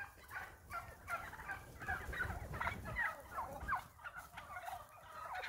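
A large flock of wild turkeys calling over one another, many short overlapping calls at once.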